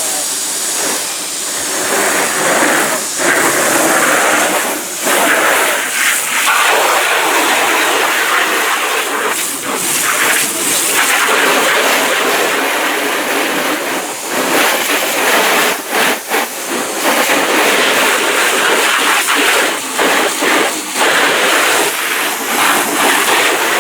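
Steady, loud hissing spray, broken by short pauses several times.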